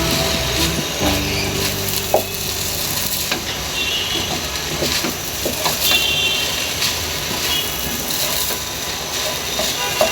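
Fried rice being stir-fried in a hot pan: a steady sizzle with scattered clicks and scrapes of the spatula against the pan.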